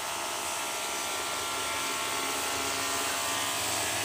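A small electric motor running with a steady whirr and buzz.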